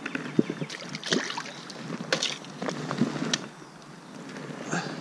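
Irregular splashing in shallow water from a hooked rainbow trout thrashing at the surface as it is played in. The splashes bunch in the first three and a half seconds, with one more near the end.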